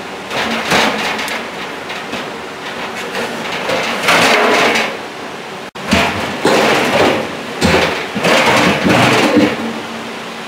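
Stainless steel drum of a large commercial washer being worked by hand into its outer tub during reassembly after a bearing replacement: metal scraping and knocking in several irregular bursts.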